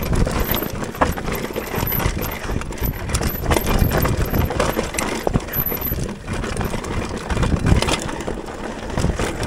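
Mountain bike rolling down a dirt trail, heard from the rider's own camera: continuous tyre and trail noise with a low rumble, and the chain and bike parts rattling and clicking over rough ground.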